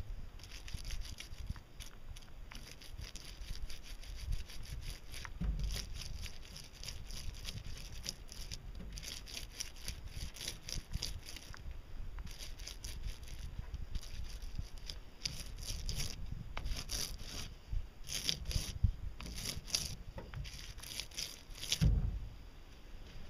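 A paint roller working resin into fiberglass cloth in repeated back-and-forth strokes, giving clusters of high crackling and rasping with each pass, with a low bump near the end.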